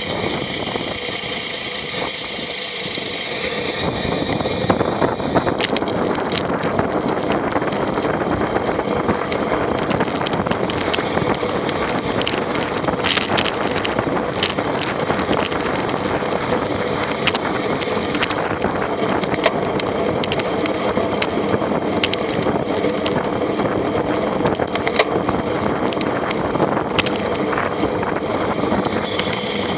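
A vehicle engine running steadily, mixed with rattling clicks and noise, getting a little louder about four seconds in.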